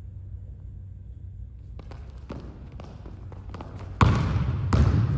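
Basketball dribbled hard on a hardwood gym floor: after a few seconds of faint knocks, two loud bounces come about four seconds in, less than a second apart.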